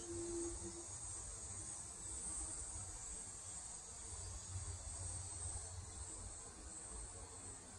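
Faint, steady, high-pitched chorus of summer insects, with a low rumble underneath.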